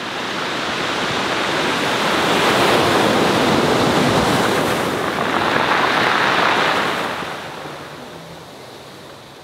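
Ocean surf: a broad rush of waves breaking and washing that swells to its loudest mid-way and fades over the last couple of seconds.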